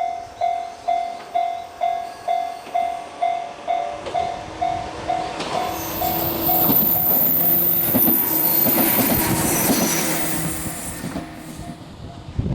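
Japanese level-crossing alarm ringing about twice a second. About four seconds in, a two-car 103 series electric train runs over the crossing, with a high-pitched squeal as it passes. The crossing alarm keeps ringing faintly behind it.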